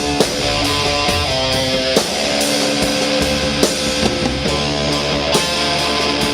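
Heavy rock music: loud guitar chords that change every second or so, over a steady beat.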